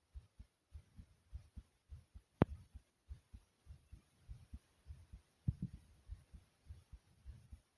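A person's fast heartbeat, faint low paired thumps repeating evenly. A sharp click sounds about two and a half seconds in, and a brief, louder knock a little after five seconds.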